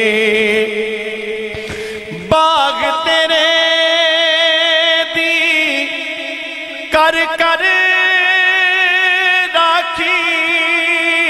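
A male voice singing a Punjabi Sufi kalam in long, drawn-out notes with a slight wavering pitch. New held notes begin about two, seven and ten seconds in.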